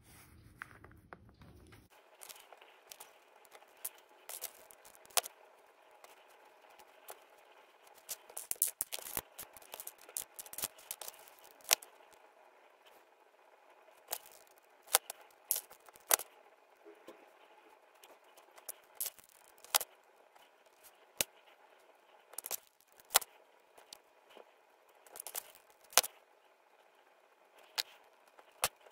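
Irregular small, sharp clicks and taps as fingers handle tiny coquina shells and a hot glue gun. Under them is a faint steady hum that starts about two seconds in.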